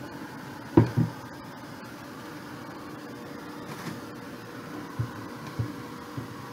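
Small handheld blow dryer running with a steady whirring hum, blowing onto a chipboard craft piece. Two sharp knocks about a second in, then a few lighter knocks later.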